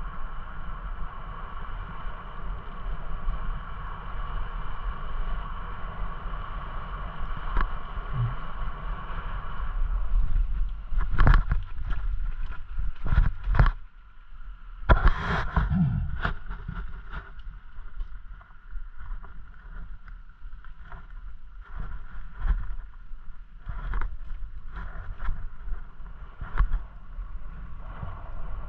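Wind rumbling on the microphone of a camera moving along a path. A steady whine of several tones runs through the first ten seconds, and from about eleven seconds on there are many short knocks and rattles.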